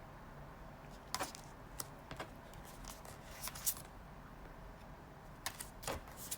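A handful of short, light clicks and rustles at irregular intervals over a faint steady background rumble.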